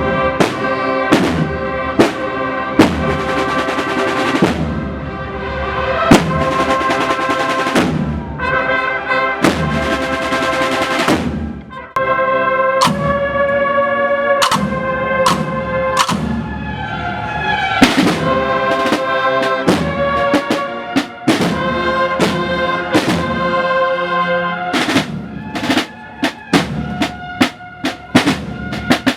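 Cornet-and-drum marching band playing a processional march: valved cornets and bugles sounding the melody over snare drums with rolls and sharp strokes.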